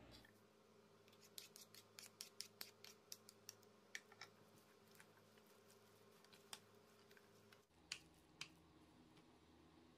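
Wooden spoon clicking and scraping against a ceramic bowl while tossing vegetables in tofu mayonnaise: a quick run of light clicks in the first few seconds, then a few scattered single clicks.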